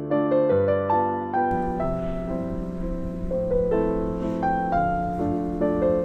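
Gentle piano music with a melody of sustained, ringing notes. About a second and a half in, a faint steady hiss and low hum come in underneath.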